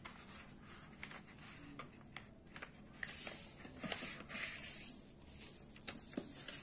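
A sheet of paper being folded in half and its crease pressed flat by hand: soft rustling and swishing with scattered small clicks, louder around the middle.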